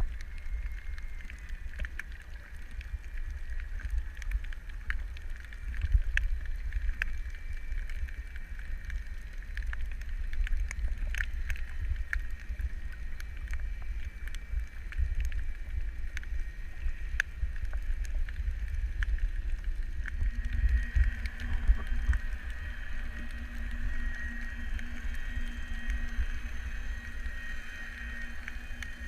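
Underwater ambience picked up through a camera housing: a constant low rumble of moving water with many scattered sharp clicks and a steady high hum that grows stronger about two-thirds of the way in.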